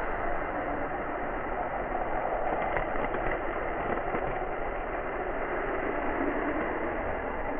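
K'nex model roller coaster train rolling along its plastic track, a steady rattling rumble heard from a camera riding on the train.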